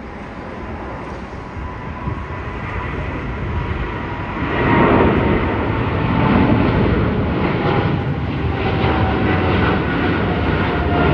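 Jet airliner engines passing close by. The roar grows, turns loud about four and a half seconds in and stays loud, with a whining tone that slowly falls in pitch.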